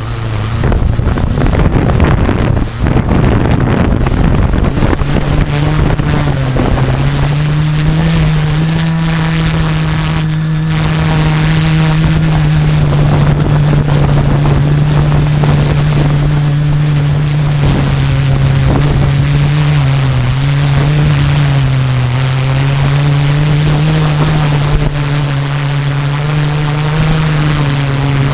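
Brushless motors and 13-inch carbon propellers of a multirotor drone, picked up by its onboard camera. Wind rushes over the microphone for the first few seconds, then a steady propeller hum takes over, its pitch wavering as the drone descends.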